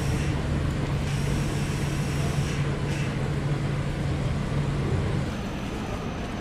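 Street traffic noise with a steady low engine hum from an idling road vehicle, likely a bus; the hum stops about five seconds in, leaving quieter traffic noise.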